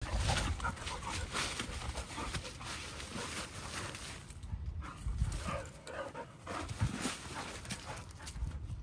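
Two dogs panting and sniffing as they nose into shrubs, with leaves and branches rustling.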